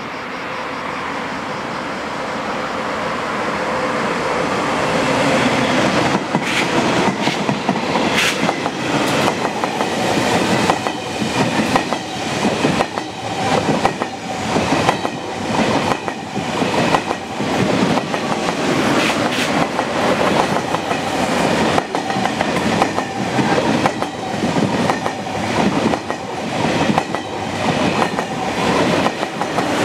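A double-deck TGV Duplex high-speed train approaches and runs close past. Its noise builds over the first several seconds, then becomes a steady run of sharp wheel clicks over the rails as the carriages go by.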